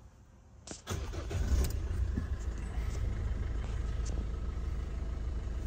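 GWM Cannon's 2.0-litre four-cylinder turbo-diesel starting about a second in, flaring up briefly and then settling into a steady idle.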